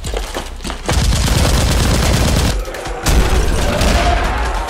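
Rapid automatic gunfire, in two long bursts with a short break about two and a half seconds in.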